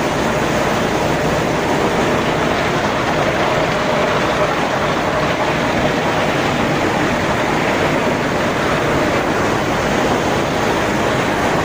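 Steady loud din of ore-processing machinery running: rows of froth flotation cells with their motor-driven agitators, and a grinding mill, making one even, unbroken noise with a faint steady hum through it.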